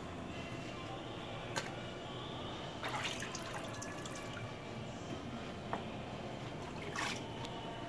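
A candle being dipped into a vat of liquid and lifted out, with liquid dripping and splashing back into the vat. There are two short splashy bursts, about three and seven seconds in, over a steady background hiss.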